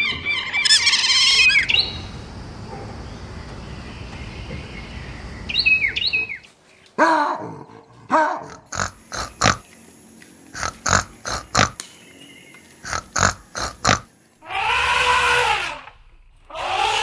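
A series of different animal calls in turn: chirping calls at the start, then a run of short sharp calls and clicks, and a long pitched call near the end.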